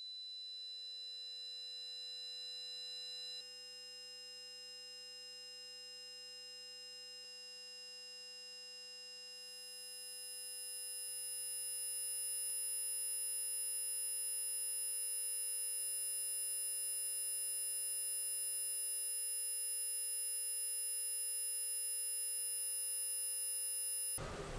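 Sustained electronic drone of many steady pure tones held together, swelling louder about ten seconds in, with a high tone entering around the same point; it cuts off abruptly at the very end.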